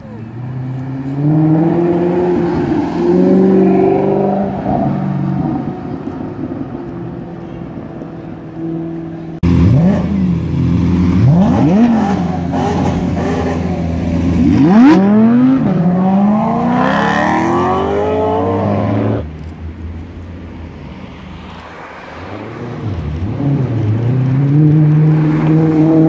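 High-performance car engines revving hard, the pitch sweeping up and dropping back in repeated blips. The sound changes abruptly about a third of the way in and again about three quarters of the way in, between separate recordings; the sharpest, steepest revs come in the middle part.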